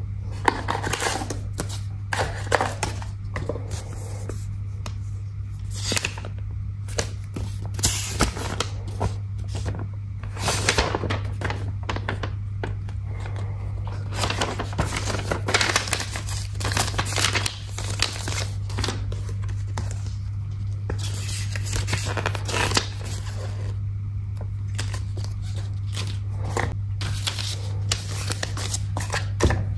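Paper rustling and crinkling as a folded instruction leaflet and small booklet from watch packaging are unfolded and handled, in short irregular rustles, over a steady low hum.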